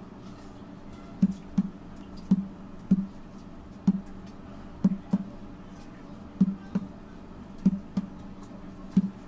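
Fingertips pressing cut fondant hearts out of a rolled fondant sheet and knocking on a granite countertop: a dozen or so dull knocks, often in quick pairs, about one a second.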